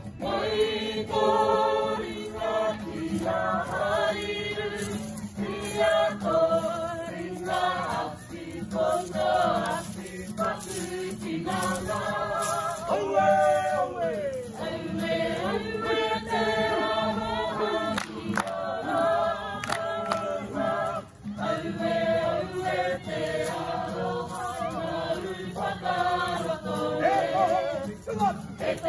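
A kapa haka group of men and women singing together in a Māori action song (waiata-a-ringa), the voices sustained and continuous with a brief dip about two-thirds of the way through.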